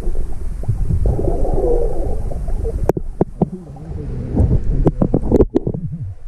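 Muffled underwater rumble of water moving against a submerged camera, with a series of sharp clicks and knocks from about three seconds in.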